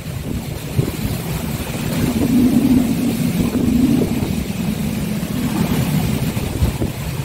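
Gale-force typhoon wind buffeting the microphone in a loud, gusting low rumble, with a low drone that swells for a couple of seconds about two seconds in.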